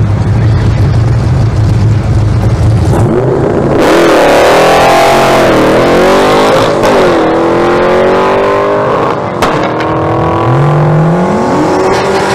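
383 stroker LT1 V8 in a Mustang sitting at the line with a steady low rumble, then launching hard about four seconds in. The revs swing up and down over the first few seconds, then the engine pulls through the gears of its T56 six-speed manual, the pitch climbing and dropping sharply at the shifts, about seven and nine and a half seconds in.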